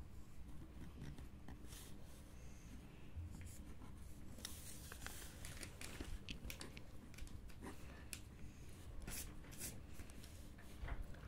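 Ballpoint pen scratching across a notebook page in short, irregular strokes, with a brief louder rustle of paper about four and a half seconds in.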